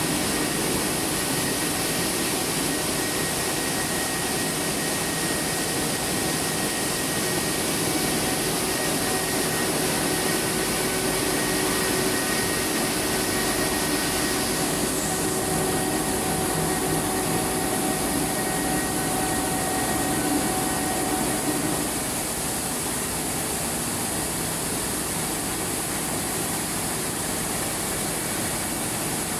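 Rice milling plant machinery running: a steady mechanical whir with a few faint steady tones in it. The sound changes character about halfway through and gets slightly quieter about two-thirds of the way in.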